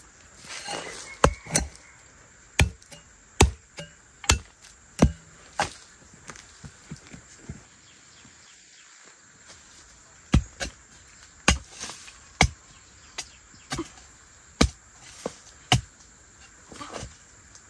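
Hoe blade chopping into earth again and again while digging up cassava roots, about one sharp stroke a second, pausing for a few seconds midway. A brief scrabble of hands in loose soil comes before the first strokes.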